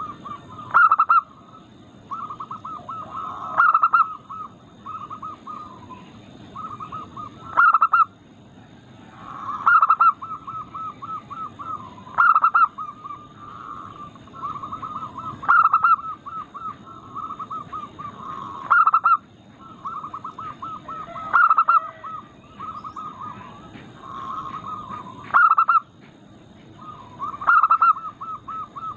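Zebra doves (perkutut) in full song: runs of quick, rolling coos, with a louder, sharper call breaking in every two to four seconds.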